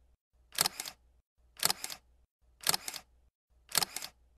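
Camera shutter clicking four times at about one per second, each a quick double click.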